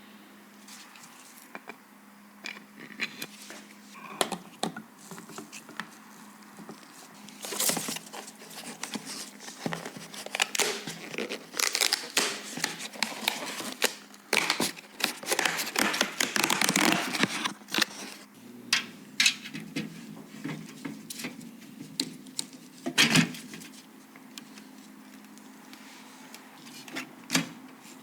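Hands handling PC parts and packaging: scattered clicks and taps with crinkling, rustling stretches, busiest in the middle, and a sharper knock near the end, over a faint steady hum.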